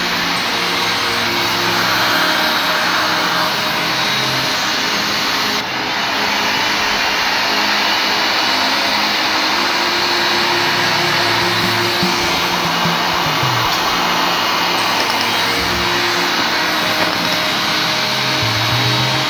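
A steady rushing, blower-like noise, with background music playing a simple melody over it.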